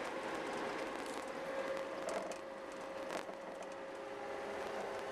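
Snow groomer's diesel engine running steadily under way, heard inside the cab, with a steady whine and a few sharp rattles of the cab and blade mechanism about two and three seconds in.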